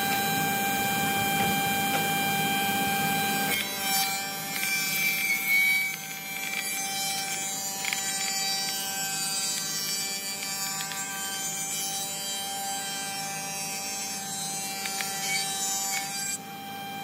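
Woodworking power tool cutting wood: a steady motor whine over the rasp of the cut, the sound shifting abruptly at about three and a half seconds and again near the end.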